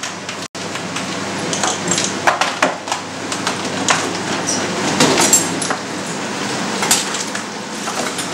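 Small metal cups clinking and clattering as they are handled and set down into a plastic tub, a string of sharp clinks at irregular intervals.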